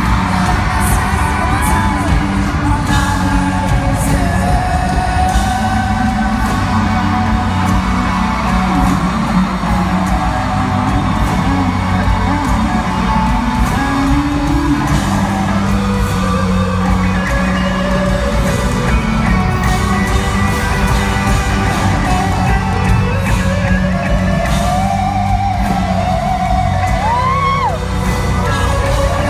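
Live pop-rock concert music in an arena, recorded from the stands: a male singer with guitar and full band, the sung melody carrying over a steady bass and drum beat.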